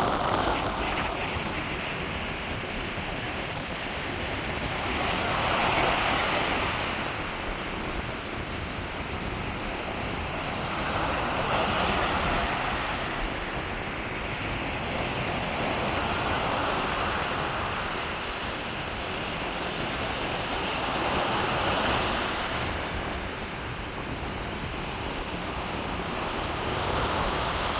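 Sea waves breaking and washing up the beach in strong wind. Each wave swells about every five to six seconds, with wind rushing on the microphone.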